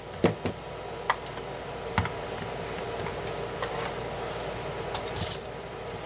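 Irregular light clicks and knocks, about nine in all, of hard tool parts being handled and set down, with a brief rustle a little after five seconds.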